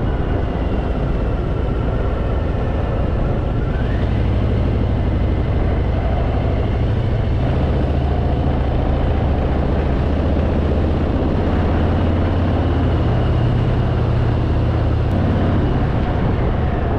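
Harley-Davidson Fat Boy's V-twin engine running steadily under way, with a constant rush of riding wind over it.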